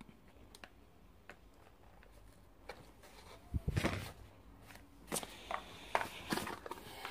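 A cardboard box handled on a table. Faint ticks at first, then a cluster of knocks and rustling about three and a half seconds in, and a run of clicks and scraping from about five seconds on as an inner box slides out of its sleeve.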